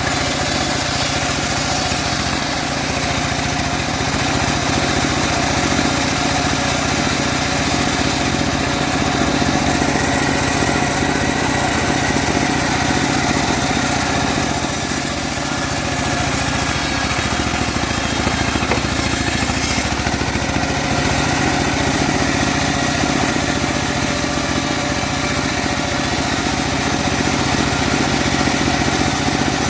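Homemade bandsaw sawmill running steadily while ripping a teak log, its drive and blade making a constant machine drone that dips slightly about halfway through.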